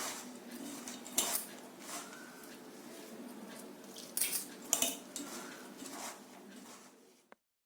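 Mixing a semolina and flattened-rice batter in a metal bowl: rustling with clinks and knocks against the bowl, the sharpest about a second in and twice near the four-to-five-second mark, cut off suddenly near the end.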